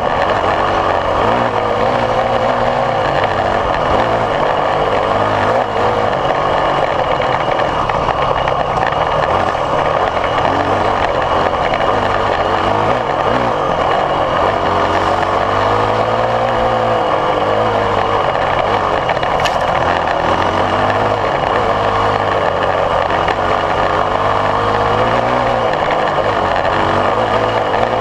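Yamaha WR450F's four-stroke single-cylinder engine running under load on a dirt trail, its note rising and falling with the throttle, heard close up from the riding bike. A single sharp click about two-thirds through.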